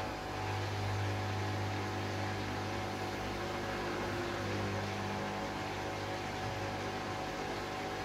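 Hoover Dynamic Next washing machine running partway through its Rapid 14 cycle: a steady mechanical hum.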